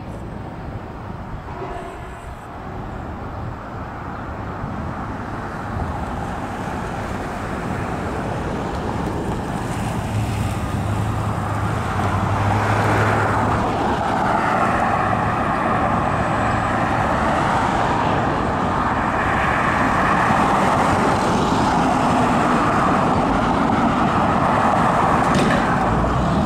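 Road traffic driving past: tyre and engine noise that grows steadily louder as vehicles approach and pass.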